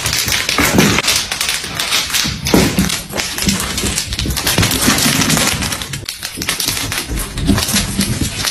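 Dense, irregular tapping and clattering of a small cat toy knocked about on a hard floor by a playing cat.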